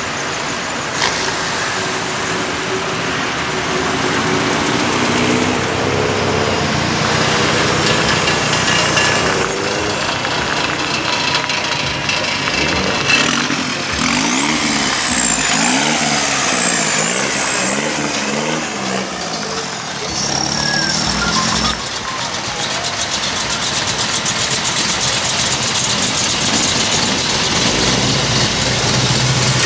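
A string of cars driving past slowly one after another, engines running, with engine pitch rising and falling around the middle of the stretch as cars rev and pass. A deeper engine sound builds near the end as a big car approaches.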